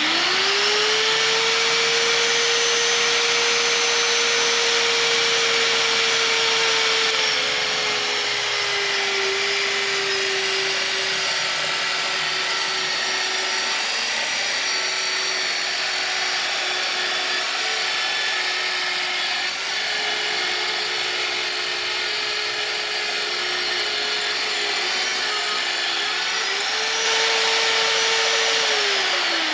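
VEVOR magnetic drill's motor spinning up and drilling through thick steel plate. Its whine drops in pitch about seven seconds in as the bit bites under load, rises again near the end as the load comes off, then starts to wind down.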